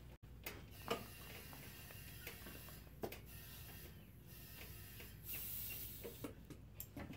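Faint, sharp metal clinks from a lawn tractor tire chain being hooked together on the tire, one about a second in, another near three seconds and a quick cluster near the end, with a brief hiss about five seconds in.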